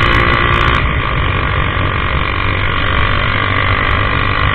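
Honda CG 150's single-cylinder four-stroke engine running steadily under way through a modified 2-into-1 exhaust, very loud.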